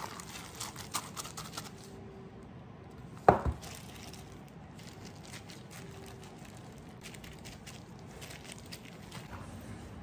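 Plastic-gloved hands mixing and scooping wet homemade dog food in stainless steel bowls: squishing, plastic glove crinkling and small scraping clicks, with one sharp knock a little over three seconds in.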